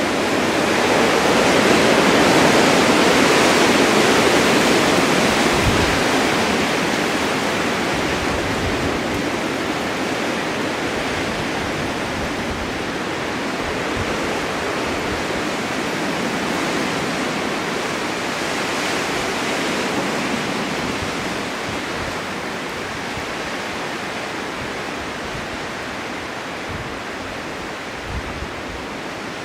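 Blizzard wind driving snow: a continuous rushing noise that swells in a gust a couple of seconds in, then slowly dies down.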